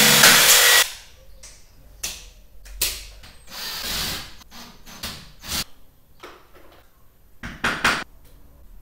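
Cordless drill running at full speed for almost a second, then cutting off suddenly. Clicks and knocks of the tool being handled follow, with a short, softer run of the drill against the ceiling about four seconds in.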